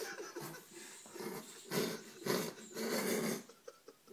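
A person's breathy, growling noises, three in quick succession about halfway through.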